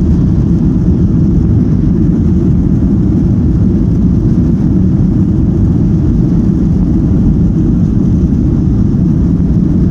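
Steady, loud drone of an airliner's engines and airflow heard from inside the passenger cabin, deep and unchanging.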